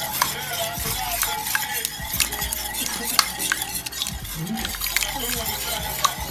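A utensil stirring a thick egg-and-onion sauce in a stainless steel pot, clicking and scraping against the pot's sides many times while the sauce sizzles underneath. The eggs are cooking into the sauce for a Moroccan pastilla filling.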